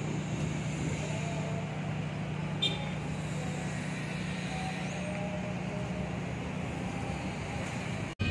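Steady low hum of vehicle engines and traffic, with one brief sharp sound about two and a half seconds in.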